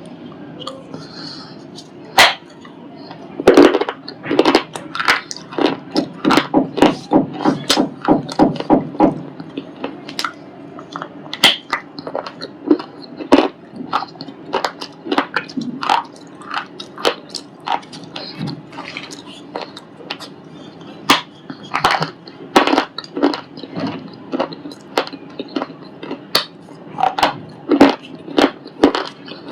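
A white ball-shaped piece of shale stone being crunched, sharp crisp cracks coming in fast runs of about three or four a second for the first third, then more spaced out.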